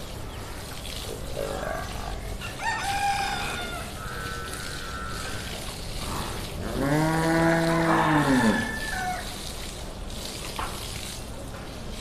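Water from a hose spraying and splashing steadily over buffaloes being bathed. About seven seconds in, a buffalo gives one long moo, lasting about two seconds, rising and then falling in pitch. There are a few shorter, higher animal calls a little earlier.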